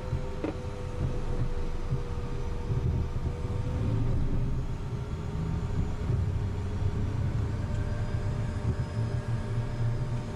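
Cessna Citation's twin turbofan engines running at low thrust as the jet rolls onto the runway, heard from inside the cockpit: a steady rumble with faint whining tones. A short click about half a second in.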